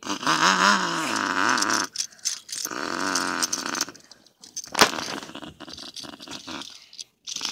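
A child's voice making raspy revving-engine noises for toy cars, rising and falling in pitch in two long bursts, followed by a sharp click a little past the middle.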